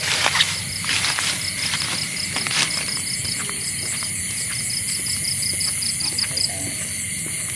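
Night chorus of crickets and other insects: a steady high-pitched pulsing trill over a constant buzz. A few short knocks and rustles come in the first three seconds.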